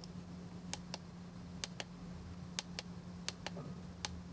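Replacement 6 x 6 mm tactile switches in an opened Logitech MX Master 3S mouse clicking as the button is pressed and released, about five press-and-release pairs in a row. The resoldered switches are actuating.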